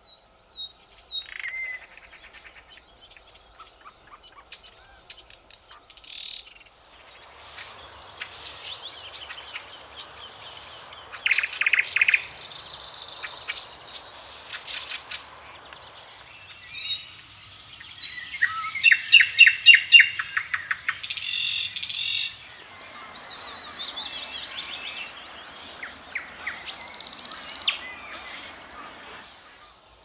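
Thrush nightingale singing: a string of separate phrases made of repeated short notes, fast rattling runs of clicks and whistled trills, with brief pauses between phrases.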